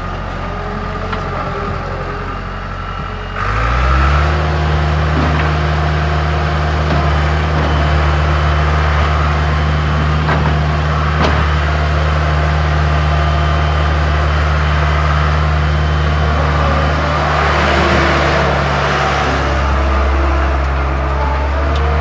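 New Holland LS190 skid steer's diesel engine running, revving up about three and a half seconds in and then holding steady at high revs as the machine drives. A rushing hiss rises over the engine for a few seconds near the end.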